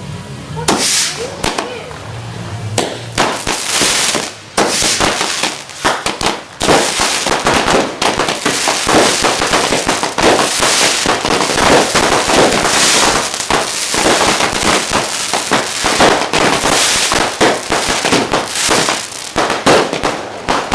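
Fireworks going off in rapid, overlapping bangs and crackles, starting about a second in. There are a couple of short lulls before the barrage becomes nearly continuous.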